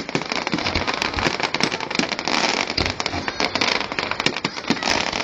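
Fireworks display: dense crackling and rapid popping, with several deep booms through it.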